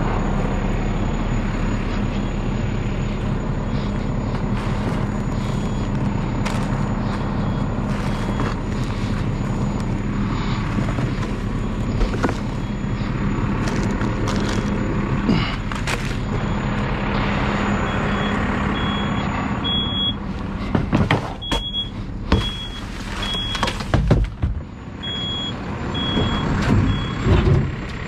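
Side-loader garbage truck's diesel engine idling steadily while spilled trash is gathered by hand from gravel, with scattered knocks and rustling. In the last third come a run of louder knocks and clatters and short high beeps repeating at intervals.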